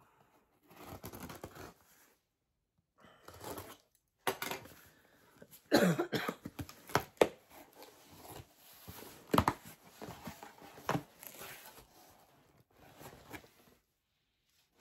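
Cardboard mailing box being opened by hand: packing tape tearing and cardboard flaps being pulled and rustled, in irregular bursts with a few sharp snaps.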